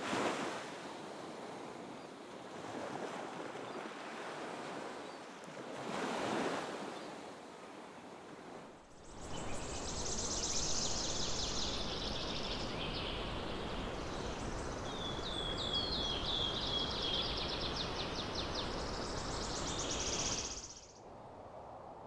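Ocean surf washing in, with two swells of waves breaking. Then, from about nine seconds in, a steady low rushing background with songbirds chirping and trilling over it. This cuts off suddenly near the end, leaving a fainter hiss.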